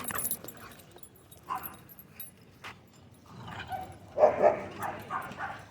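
A dog barking and yipping in short calls, with a run of several louder barks starting about three and a half seconds in.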